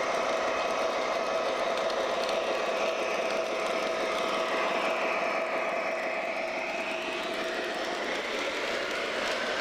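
O-scale MTH model diesel locomotive running on track, its Proto-Sound 3.0 diesel engine sound mixed with motor and wheel noise. A steady whine in it drops away about eight seconds in.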